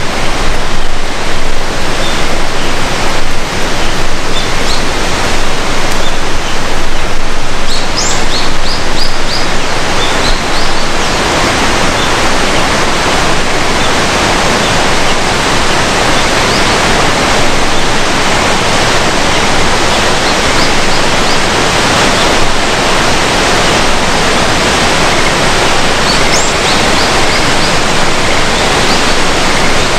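Loud, steady rush of a waterfall in a river gorge, with a few short high chirps about eight seconds in and again near the end.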